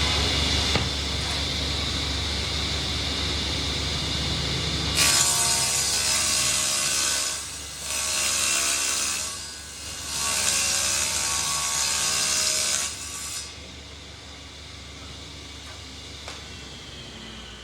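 Power saw cutting through a wooden sheet. The motor runs steadily for a few seconds, then cuts loudly in three stretches from about five seconds in, and goes quieter near the end.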